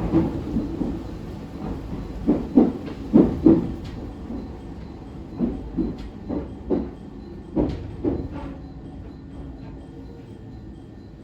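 Wheels of an Echigo Tokimeki Railway ET127 series electric train clacking over rail joints in pairs over a low running rumble. The pairs come further apart as the train slows, and the clacking dies away to a quieter rumble about three-quarters through.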